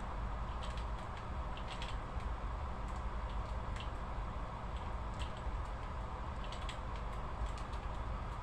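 Irregular light clicks and taps, a few a second at most, over a steady low hum.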